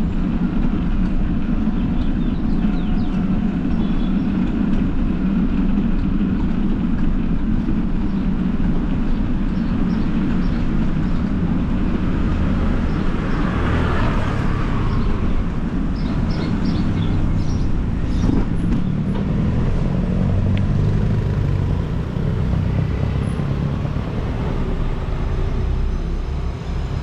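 Steady low rumble of wind buffeting the microphone and tyres running over rough street pavement while riding a bicycle, with a brighter hiss that swells and fades about halfway through.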